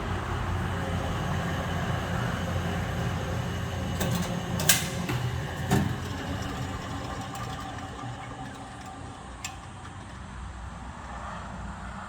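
Electric motor of a radish-shredding machine running with a steady hum, with two sharp clacks around the middle; the sound grows quieter in the second half.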